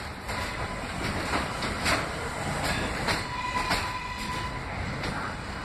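R143 subway train rolling past on elevated track and pulling away, its wheels clacking over the rail joints in an uneven beat of roughly one to two clicks a second.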